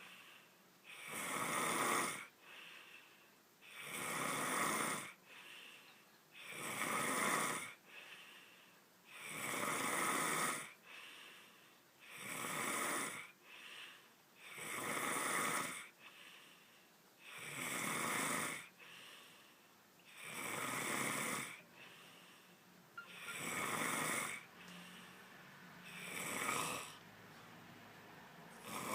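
A person snoring loudly and steadily: a loud rasping snore about every two and a half to three seconds, with a fainter breath between each one.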